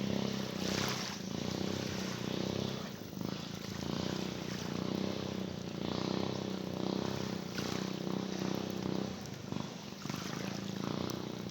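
Small motorboat engine running steadily, a low even hum over the noise of water and wind.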